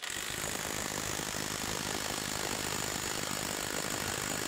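Vtek V6309 cordless impact wrench hammering steadily at full trigger, tightening a bolt held in a torque-test fixture, with a high steady whine over the rapid impacts.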